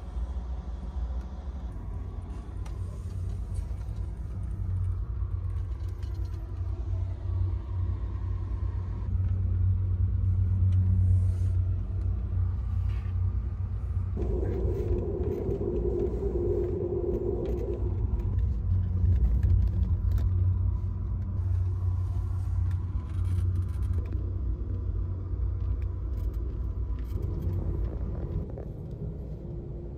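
Low, steady rumble of a moving Amtrak Superliner sleeping car heard from inside a roomette, with scattered clicks and rattles. A humming tone joins in for a few seconds midway.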